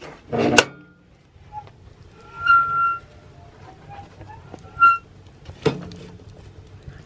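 Steel door of a small backpacking wood stove being unlatched and swung open: a metal clank with some ringing about half a second in, then a high squeak about two and a half seconds in and a shorter one near five seconds. A sharp knock follows as a log in the firebox is handled.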